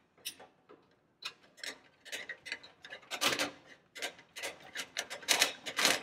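Screwdriver backing screws out of a toaster oven's sheet-metal casing: a run of short, irregular scraping clicks, loudest about three seconds in and near the end.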